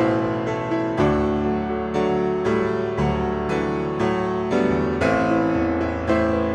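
Background music: a slow piano piece, with notes and chords struck about once a second and left to ring out.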